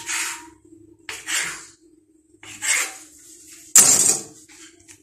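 Dough being worked by hand on a marble countertop: four short rubbing scrapes about a second and a quarter apart, the last the loudest with a sharp start. A steady low hum runs underneath.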